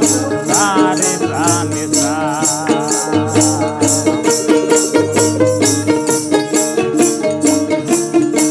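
Instrumental Baul folk music: a bowed folk fiddle plays a wavering, ornamented melody over plucked lute notes, with a shaken rattle keeping a steady, even beat.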